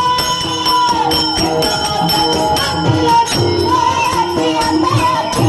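Warkari devotional bhajan sung by a group of students, voices holding and bending long notes, with small hand cymbals (taal) struck in a steady beat about three to four times a second.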